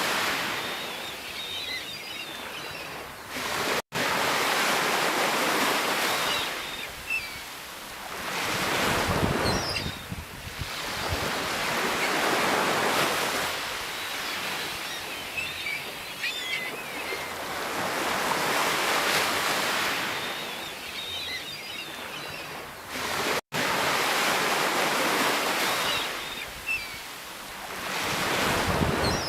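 Sea waves breaking and washing ashore, the surf swelling and ebbing about every three to four seconds. The sound cuts out for an instant twice, about four seconds in and near the end.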